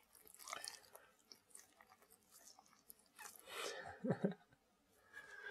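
Faint wet mouth sounds from an old black Labrador lying right by the microphone: scattered licking and chewing-like smacks, with a couple of louder ones about three and a half to four seconds in.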